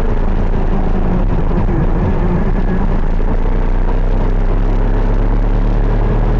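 KZ 125 shifter kart's two-stroke single-cylinder engine running hard, its note wavering a little up and down, over a heavy low rumble.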